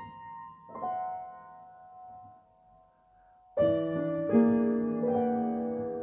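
Solo piano playing: a couple of soft single notes ring and die away. After a brief hush, loud full chords are struck from about three and a half seconds in.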